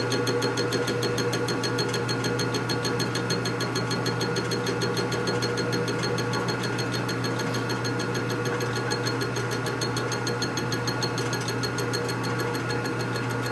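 Machine tool running steadily through a cut on a billet motorcycle rear brake caliper bracket, a constant mechanical hum with a fast, even ticking over it.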